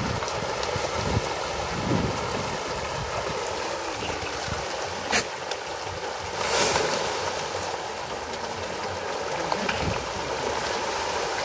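Pangas catfish churning and splashing at the surface of a pond: a steady rush of water, with a sharp splash about five seconds in and a louder splash a little later.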